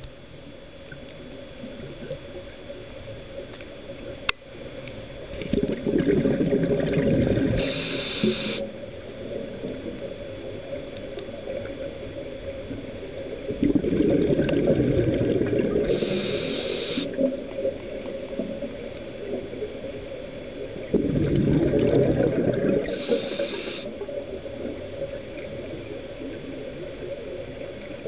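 Scuba diver breathing through a regulator, heard underwater: three breaths about eight seconds apart. Each is a rush of bubbles lasting two to three seconds, with a short higher hiss from the regulator, over a steady faint hum.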